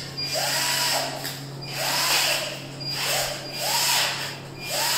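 Electric drill boring into an aluminium window frame in about five short trigger bursts, the motor spinning up, holding and winding down each time.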